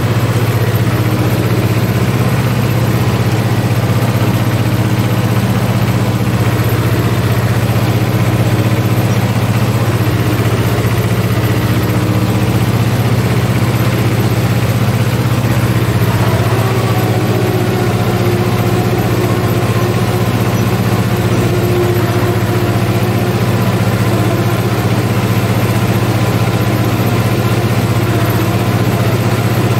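Ursus C-330 tractor's two-cylinder diesel engine running at a steady speed, heard from inside the cab.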